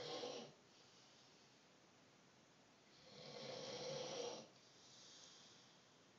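Slow snoring: the end of one snore right at the start, then about three seconds in a loud snore lasting about a second and a half, followed by a softer breath out.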